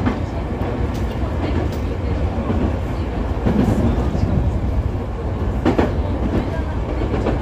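Nankai 2000 series electric train running along the line, heard from inside behind the driver's cab: a steady rumble of wheels on rail, broken by a few sharp clacks over rail joints. The loudest clack comes a little before the end.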